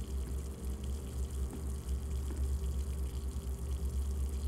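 Horror film sound design: a steady low rumble under a faint watery gushing sound.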